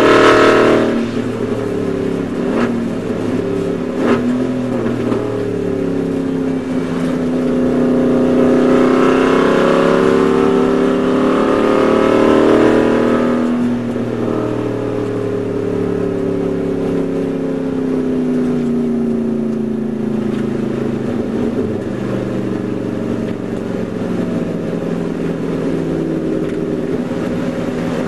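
Aston Martin Vantage GT4 race car's V8 engine, heard from inside the cockpit. Its revs climb and it grows louder about eight seconds in, then the pitch falls from about fourteen seconds in as the car slows down to pit-lane speed, settling into a steady low-rev run, with a few short knocks in the first four seconds.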